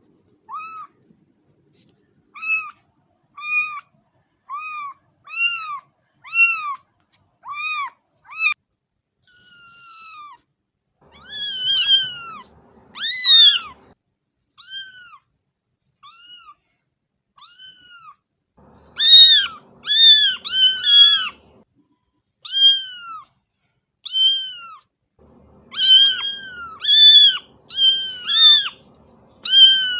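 A cat meowing over and over: short, high-pitched meows that rise and fall, about one a second, louder and coming in quicker runs in the second half.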